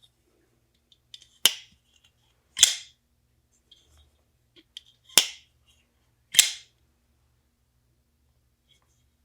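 Kizer Beyond titanium-handled folding knife being flicked open and snapped shut twice: four sharp metallic snaps in two pairs, each with a short ring.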